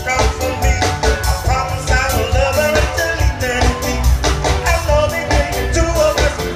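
Live band playing an upbeat song with singing over a steady drum beat and bass, heard from out in the crowd.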